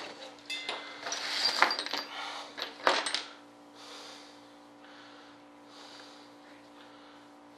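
Small metal parts and tools clattering on a workbench as things are moved about, with a sharp clack a little under three seconds in. Then quieter soft rustling, about once a second, as a JB Weld blister pack is handled.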